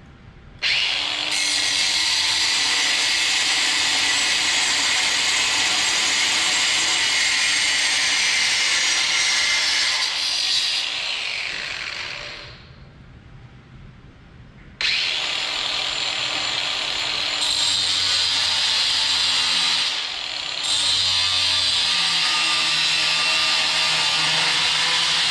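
Ryobi angle grinder cutting through the ends of a steel horseshoe. It spins up about half a second in, runs steadily while cutting, and winds down about ten seconds in. After a pause of about two seconds it starts again and cuts to the end, with a brief dip near twenty seconds.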